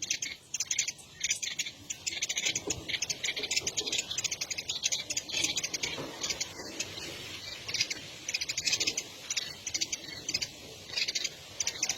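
High-pitched animal calls in rapid pulsing trills, coming in runs with short gaps.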